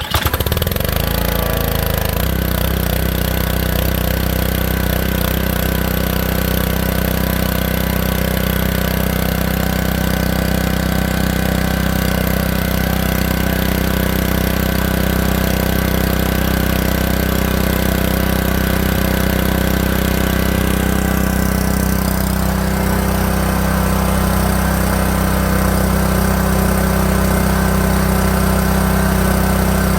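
Honda GC190 single-cylinder engine on a pressure washer starting up with the choke on and settling within a couple of seconds into a steady run. Its sound changes slightly about two-thirds of the way through.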